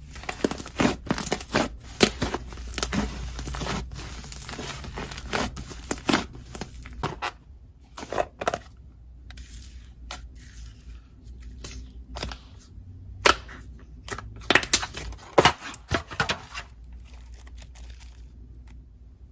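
Slime being mixed with clay by hand, giving sticky crackles, clicks and small pops as it is squeezed and stretched. The crackling is dense for the first seven seconds or so, then comes in sparser bursts and dies down near the end.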